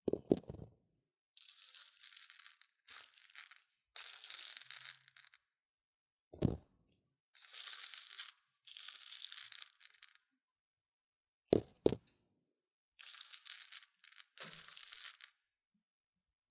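Mung beans stirred and scraped with a wooden stick inside the silicone ear of a binaural microphone: close, crisp rustling and scratching strokes about a second long with short pauses between them. Four sharp low knocks come about five seconds apart.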